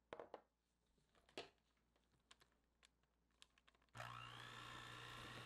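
A few light clicks and knocks, then about four seconds in an electric hand mixer switches on and runs steadily with a motor hum and whine, its beaters working cold mascarpone in a glass bowl.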